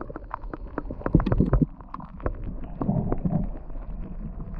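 Muffled underwater sound of a shallow stream picked up by a submerged camera: irregular clicks and knocks over a low rumble, with the high frequencies cut off.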